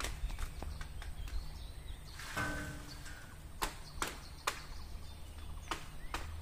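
Outdoor ambience with wind rumbling on the microphone, a few scattered sharp clicks or taps, and a brief faint call about two and a half seconds in.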